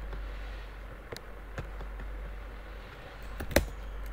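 Computer keyboard keystrokes: a few scattered key clicks, then a quick cluster with one louder key press about three and a half seconds in, over a steady low hum.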